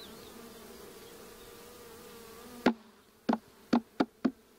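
Honeybees buzzing steadily over an opened hive, then about five sharp knocks in quick succession over the last two seconds.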